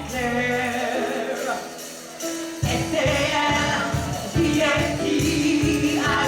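Gospel singers with a band performing an upbeat song; a steady drum-and-bass beat comes in about two and a half seconds in.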